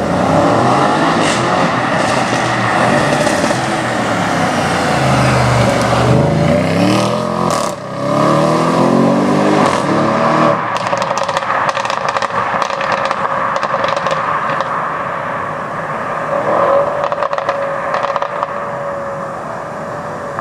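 Audi RS6 performance cars accelerating hard, the engine note sweeping down and then climbing again. Then, from about halfway, a run of sharp exhaust crackles and pops on the overrun over steadier engine noise.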